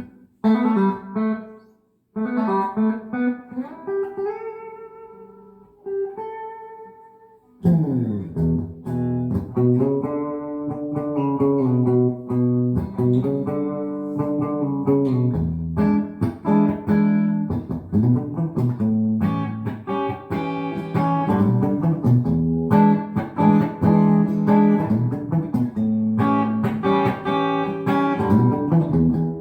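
G&L CLF Doheny V12 electric guitar played unaccompanied: a few single notes and short phrases left to ring, then from about eight seconds in a steady run of chords.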